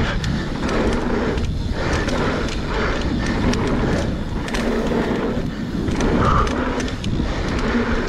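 Mountain bike rolling fast down a packed-dirt trail: steady tyre and wind noise with the bike rattling and clicking over small bumps.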